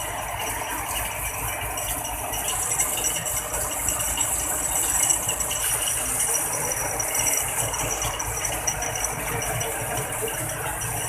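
Heavy tow truck's engine running steadily, with a constant mechanical rattle.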